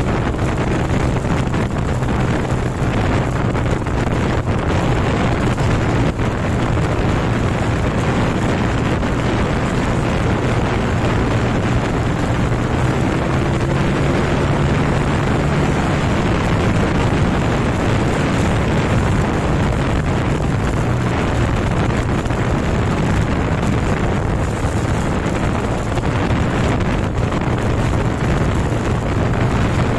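Motorcycle engine running at a steady cruise of about 60–65 km/h, an even hum under heavy wind rush on the microphone.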